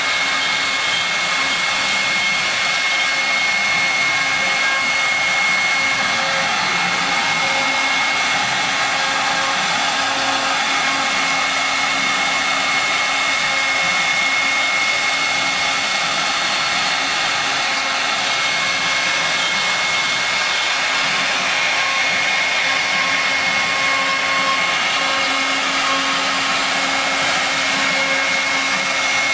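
CNC router's spindle motor running steadily while carving a bas-relief into wood: a continuous motor hiss with a steady high tone, unchanging throughout.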